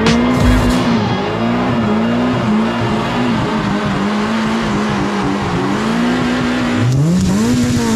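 A BMW doing a burnout: the engine is held high in the revs with its pitch wavering slightly while the spinning rear tyres hiss on the asphalt. Near the end the revs drop and climb straight back up.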